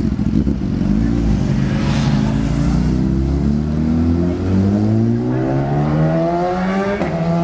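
Motorcycle engine accelerating hard, its pitch climbing steadily for several seconds. Near the end it drops suddenly at a gear change and starts to climb again.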